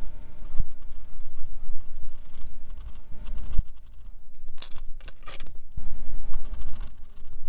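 Graphite pencil scratching over sketch paper in quick shading strokes, picked up close by a clip-on microphone at the drawing wrist, with a low rubbing rumble. A few sharp clicks come a little past halfway.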